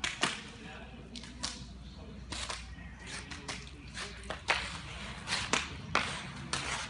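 Wet clay slapped and packed by hand into a wooden brick mould, a string of sharp wet slaps at irregular intervals, with a rasping sweep as the excess clay is scraped off the top of the mould.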